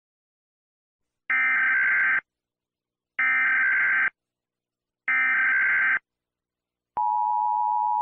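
Emergency Alert System signal: three short bursts of SAME header data tones, about two seconds apart. About seven seconds in, the steady two-tone EAS attention signal begins.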